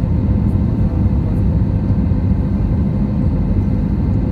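Steady low rumble of an Airbus A320-family jet's engines and airflow, heard from inside the passenger cabin over the wing while in flight.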